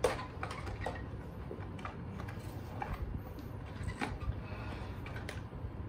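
Cardboard box being opened by hand and the sachets inside handled: a few scattered taps and scrapes.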